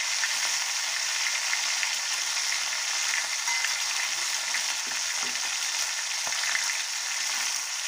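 Small mola fish frying in hot mustard oil in an aluminium kadai, a steady sizzle.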